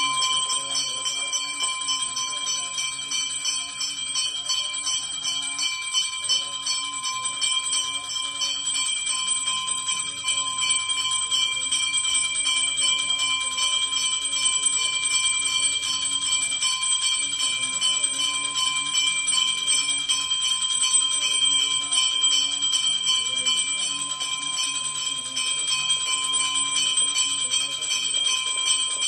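Metal temple bell rung rapidly and without pause during aarti, its high ringing held steady throughout, with a voice beneath it.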